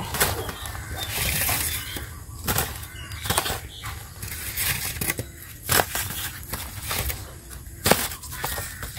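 Freshly cut bamboo shoots being picked up and set down on a woven plastic sack: irregular knocks as the shoots bump together, with the sack rustling and crinkling.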